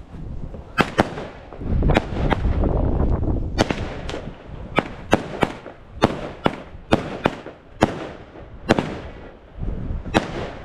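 A consumer firework battery firing a run of sharp bangs, irregularly spaced at about one to two a second, with a low rumble between the reports.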